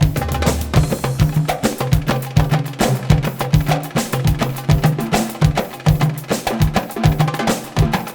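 Background music: a fast darbuka (goblet drum) solo, dense rapid strikes mixing deep low beats with sharp high taps.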